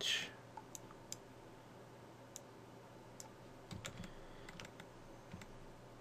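Scattered, irregular clicks of a computer mouse and keyboard, with a small cluster about four seconds in, over a faint steady hum.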